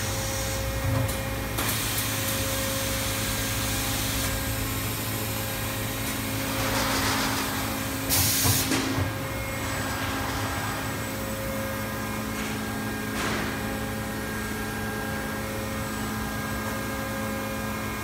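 Salvagnini P4 CNC panel bender powered up, its motors giving a steady hum with several fixed tones. A short, loud hiss comes about eight seconds in.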